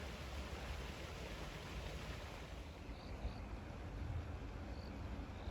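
Steady hiss of a flowing creek with a low rumble beneath it, and a few short high chirps from about halfway through.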